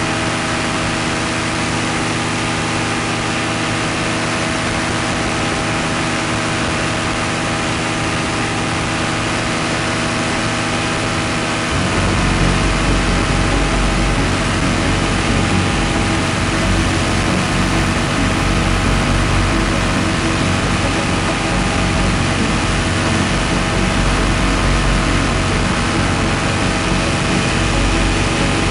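Paramotor trike engine and propeller running steadily in flight, a constant drone. About twelve seconds in, a deeper, louder rumble joins it.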